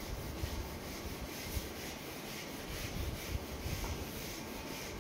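Whiteboard duster rubbing back and forth over a whiteboard, erasing it: a soft, steady run of repeated swishing strokes.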